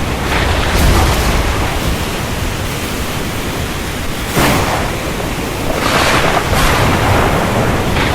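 Heavy rain pouring steadily, with sudden swells in the downpour, the sharpest about halfway through.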